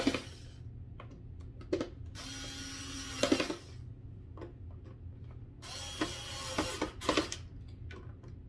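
Small cordless electric screwdriver driving screws into a plastic toy housing: its motor runs twice, about a second and a half each time, and each run ends in a quick rattle of clicks as the screw tightens. Light clicks and taps of handling come between the runs.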